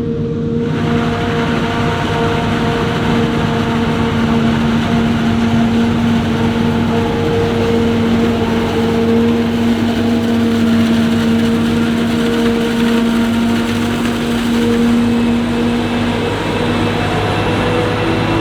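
Claas Jaguar 870 forage harvester chopping maize: a loud, steady machine drone with an even hum running through it. The noise fills out suddenly just under a second in.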